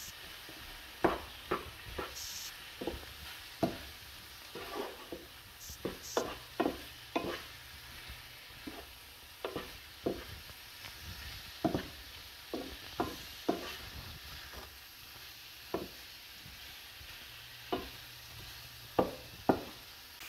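A wooden spoon stirring shrimp and peppers in a frying pan, scraping and knocking against the pan in irregular short strokes over a light sizzle of frying.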